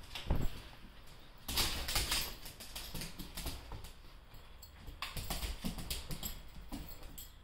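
A dog's claws clicking and scrabbling on a hard plank floor as it spins and pounces after a laser dot, with a thump just after the start and quick flurries of clicks about a second and a half in and again from about five seconds.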